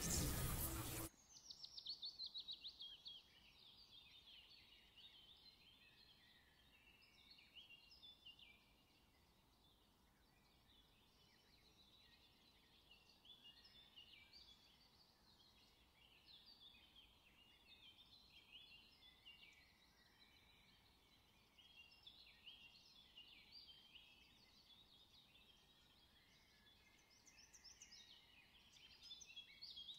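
A loud burst of sound that cuts off about a second in. Then faint, continuous chirping and twittering of small birds, many short high notes overlapping.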